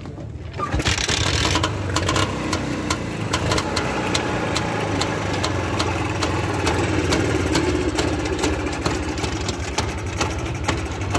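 Air-cooled single-cylinder motorcycle engine on a cargo trike kick-started, catching under a second in and then idling steadily.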